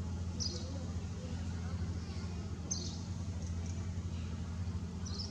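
A steady low motor-like hum, with four short high-pitched chirps: one near the start, two in the middle and one near the end.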